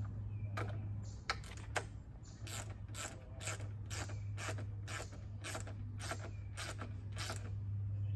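Hand ratchet clicking in quick repeated strokes, about three clicks a second, as a fastener is turned by hand. A steady low hum runs underneath.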